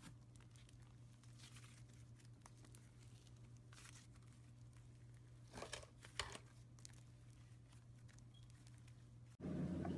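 Faint crackling of slime being handled and pressed, in scattered small crackles with a louder cluster a little past halfway, over a low steady hum. Near the end it cuts suddenly to a louder steady rumbling noise.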